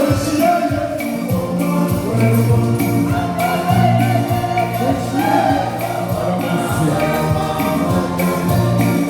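Choir singing gospel-style church music over instrumental accompaniment with a steady percussion beat.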